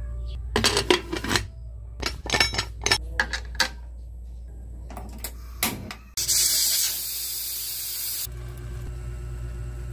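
Metal clanks and clicks as the aluminium pressure cooker's lid is set on and locked, then a steady loud hiss for about two seconds, steam escaping from the pressure cooker.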